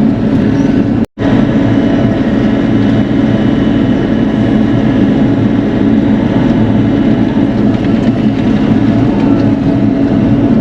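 Bobcat E42 mini excavator's diesel engine running steadily at working speed. The sound cuts out for an instant about a second in.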